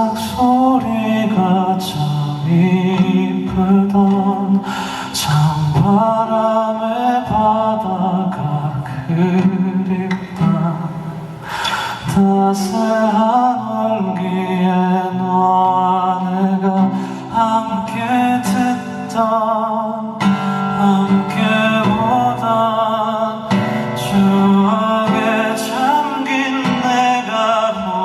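A male singer singing live with a band of keyboard, bass and drums behind him.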